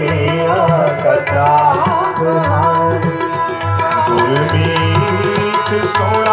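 Devotional music: tabla playing a steady rhythm under a bending melodic line, in the accompaniment of a Sikh shabad kirtan between sung lines.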